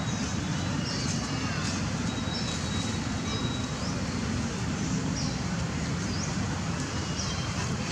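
Steady low rumble of distant road traffic, with short high bird chirps repeating about once a second.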